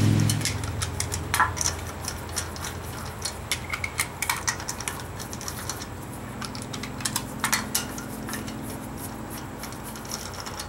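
Irregular sharp metallic clicks and clinks of a socket and extension working steel lug nuts onto an alloy wheel's studs by hand. A low steady hum dies away in the first half second.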